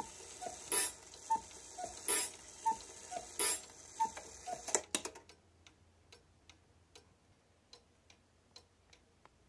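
Majak cuckoo clock calling several times, each call a higher then a lower note with an airy puff, then the clock ticking steadily once the calls stop.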